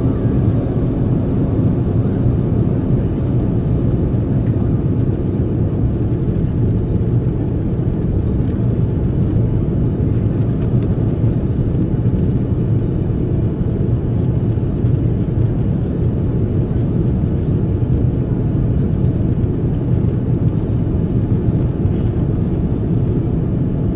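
Steady cabin noise inside an Airbus A330-300 in flight: a low, even rumble of the jet engines and the air rushing past the fuselage.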